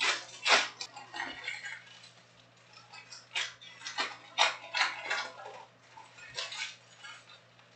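Foil trading-card packs being handled and torn open: a series of irregular crinkling rustles, the loudest about half a second in and again from about three and a half to five seconds.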